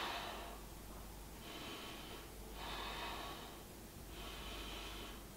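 A person breathing slowly and deeply while holding a yoga pose: about four faint, drawn-out breaths, each lasting roughly a second.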